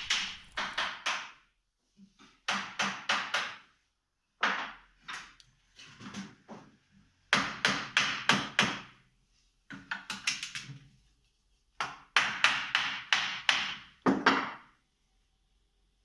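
Hammer tapping on a wooden chair frame in quick runs of several strikes, about four to five a second, with short pauses between the runs.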